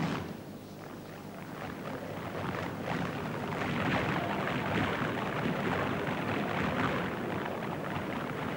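A crowd applauding, swelling about a second in and then holding steady.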